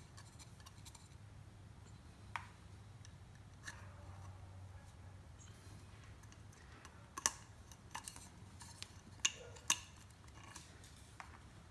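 Scattered light clicks and taps of small parts being handled while an oil filter cartridge and its plastic housing are worked on, about eight in all, over a faint low hum.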